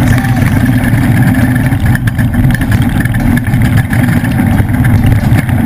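A Ford trophy truck's engine running hard through a race lap: a loud, steady, rough drone with no clear revving up or down.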